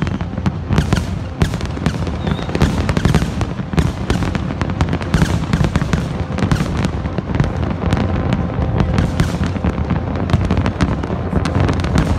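A large fireworks display: many shells bursting close together, so the bangs and crackles overlap with no pause.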